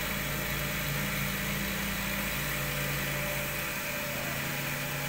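Cotton candy machine running: the spinning head's motor hums steadily over the even hiss of its jumbo cast-aluminium gas burner.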